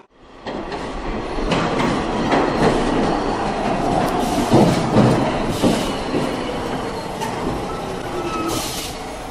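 Subway train running along the track: a steady rumble with irregular clacks over the rail joints and a faint wheel squeal near the end.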